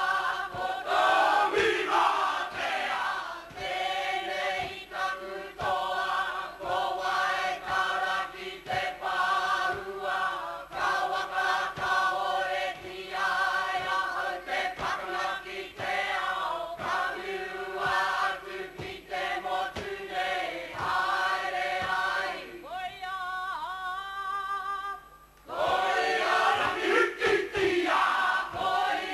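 Māori kapa haka group of women and men singing in unison in short, rhythmic phrases. Near the end the singing drops to a quieter, held, sliding line for a couple of seconds, then the full group comes back in loudly.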